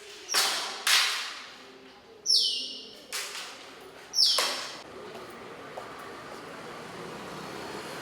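Firecracker bangs: five loud reports in about four seconds, each dying away, some with a brief falling whistle, then a steady background hubbub.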